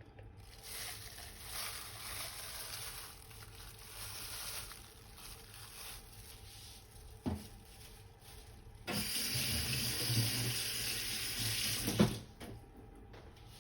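Kitchen tap running into a sink, with the flow louder for about three seconds near the end and a couple of short knocks.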